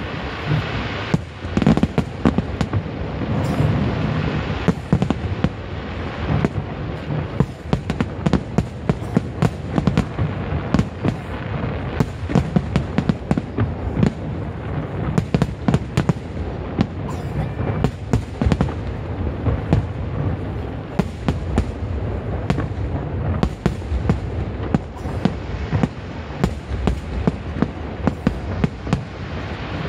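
Aerial fireworks display in full swing: an unbroken barrage of sharp bangs and crackles, several a second, over a continuous deep rumble.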